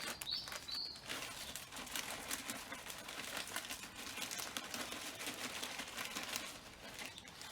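Brush scrubbing dried bird droppings off a garden bird feeder: a dense, rapid scratching that goes on steadily.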